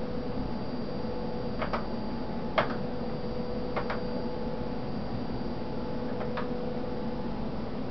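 A handful of short, sharp clicks at irregular intervals from an ultrasound machine's console keys, pressed while placing skull-measurement calipers. They sound over the machine's steady hum, which carries a faint high whine.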